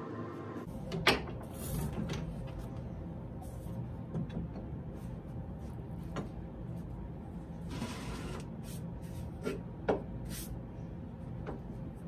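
A few sharp knocks and clicks of tools and hands on a wooden workbench, the loudest about a second in and another near ten seconds, over a steady low hum.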